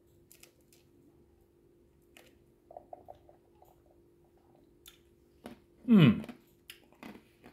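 A man tasting a freshly made piña colada: small mouth clicks and sips, then about six seconds in a short appreciative 'mmm' that falls in pitch. A faint steady hum runs underneath.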